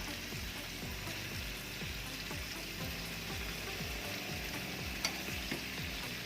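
Chicken wings, potato and carrot wedges sizzling in hot frying oil in a pan, a steady frying hiss, with one sharp click about five seconds in.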